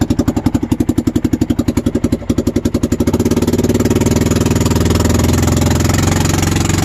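Massimo MSU 500 UTV's single-cylinder engine idling with an even chug about ten times a second, then speeding up about three seconds in to a steady, faster run. It is running with a newly fitted warranty-replacement muffler, and it is doing a lot better with the exhaust repaired.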